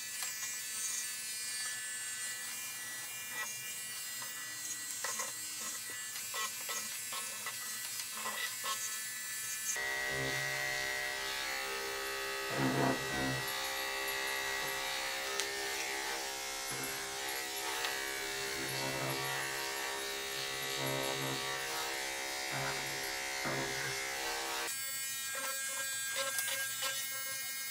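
Corded electric grooming clippers with a 10 blade running with a steady buzz as they shave synthetic hair close on a dog model's face. The buzz grows fuller about ten seconds in and thins again near the end.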